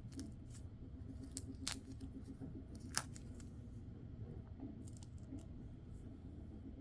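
Dried peel-off film being peeled off skin: scattered sticky crackles and sharp little snaps, irregularly spaced, the loudest about three seconds in.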